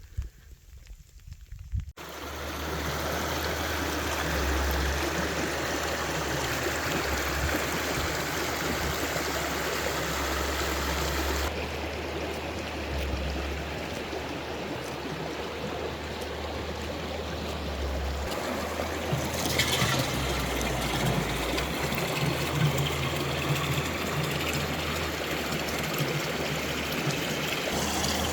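Water running in a steady trickling flow, starting suddenly about two seconds in, with a low steady hum beneath it.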